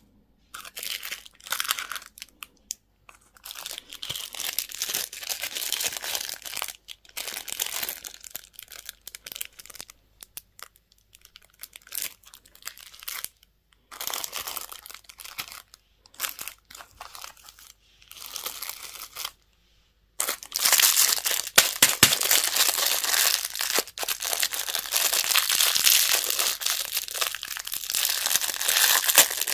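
Candy and toy wrappers being crinkled and torn open, in irregular bursts with short pauses, then continuous, louder crinkling from about two-thirds of the way in.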